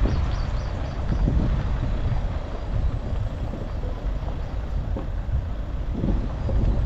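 Dacia Duster driving, a steady low rumble of engine and road noise with a few irregular knocks.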